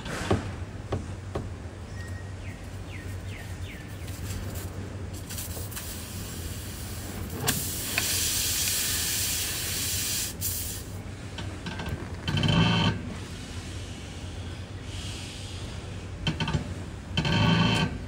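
Air hissing out of a punctured tubeless tyre for several seconds as the puncture is worked with a plug-kit tool, loudest about halfway through. Two short, louder sounds follow near the end.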